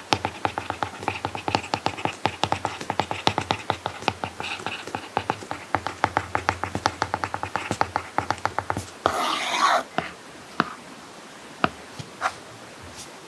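Apple Pencil tip tapping and scratching on an iPad screen fitted with a paper-like matte protector, handwriting in quick strokes with several small ticks a second. About nine seconds in there is a brief scratchy rush, then only a few separate taps.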